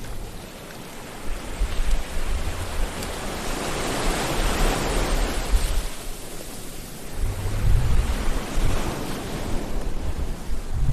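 Sea waves surging and washing, swelling to a peak about halfway through and again near the end, with a low rumble underneath.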